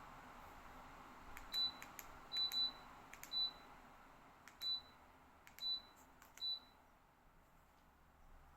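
LEVOIT tower fan beeping as its control buttons are pressed: seven short high beeps, each with a faint click, some in quick pairs. Underneath, a soft steady airflow hiss gradually quiets.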